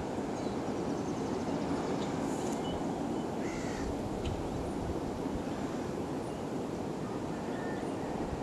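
Steady outdoor rush of wind, with a few faint short bird calls.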